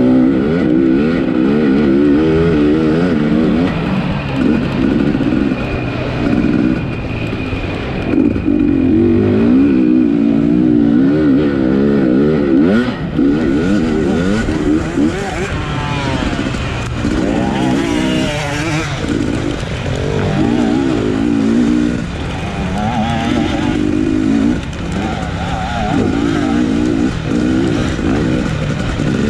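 Off-road racing dirt bike engine of the 250 class under hard riding, its revs rising and falling again and again as the throttle is worked.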